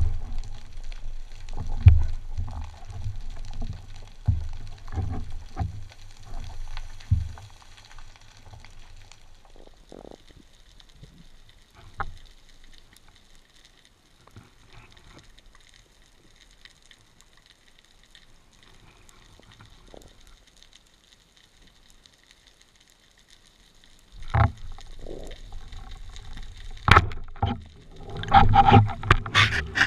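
Muffled underwater sound picked up by a camera in a waterproof housing on a speargun. Low thumps and water movement come first, then a long quiet stretch with a few faint clicks. About two-thirds of the way through, louder knocks and rumbling return, with a sharp crack near the end.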